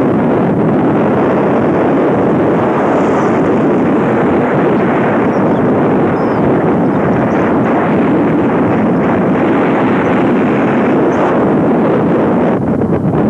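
Steady rush of wind buffeting the microphone of a camera in a car travelling at speed, mixed with engine and tyre noise.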